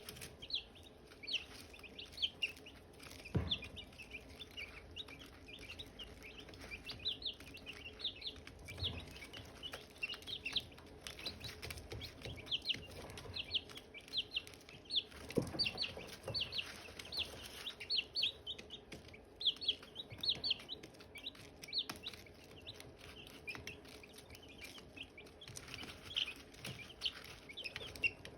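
Silkie chicks peeping: a steady stream of short, high chirps from several chicks, overlapping and several a second. Two dull knocks sound, about three seconds in and again midway.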